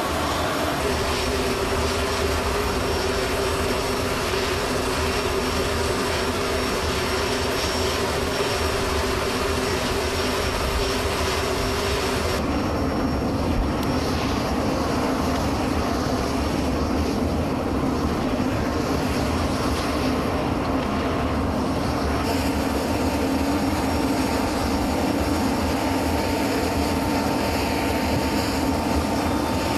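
Aircraft engines running steadily on a flight line: a continuous drone with a steady whine. The sound shifts abruptly twice, about twelve and about twenty-two seconds in.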